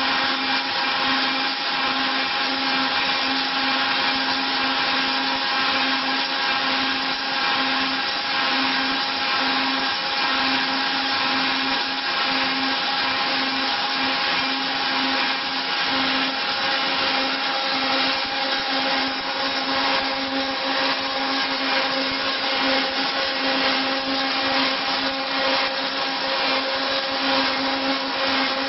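Wood copy milling machine running steadily: its high-speed cutter motors make a dense, even whir with a few fixed tones in it, unchanging throughout.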